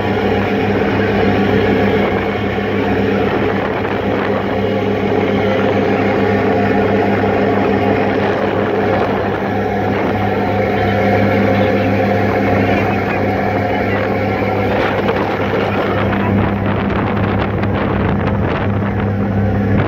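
Passenger ferry's diesel engines droning steadily with a constant low hum, over the rush of its wake water. Wind buffets the microphone now and then, more in the last few seconds.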